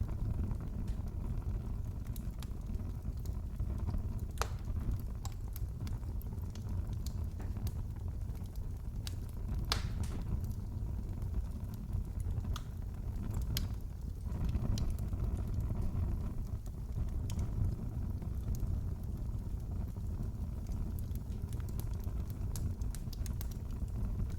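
Wood fire crackling in a fireplace: a steady low rumble of flames with scattered sharp pops, a few louder ones around the middle.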